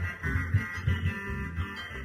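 Instrumental music led by plucked guitar over a repeating bass line.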